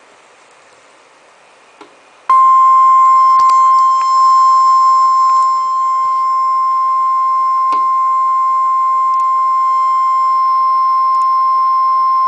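NOAA Weather Radio 1050 Hz warning alarm tone: one loud, steady, unchanging beep that starts abruptly about two seconds in, after faint radio hiss, and holds for about ten seconds. It signals that a warning broadcast follows, here a severe thunderstorm warning.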